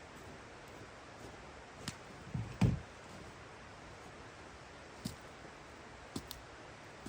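A few light knocks and one heavier, dull thump about two and a half seconds in, over a steady low hiss.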